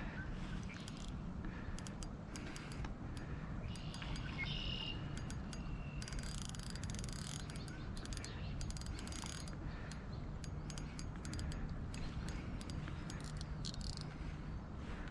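Outdoor ambience: scattered short, high chirps and clicks from small wild creatures over a steady low rumble.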